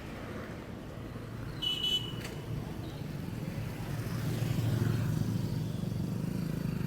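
A road vehicle's engine runs with a low, pulsing rumble that grows louder about four to five seconds in. A short, high beep sounds about two seconds in.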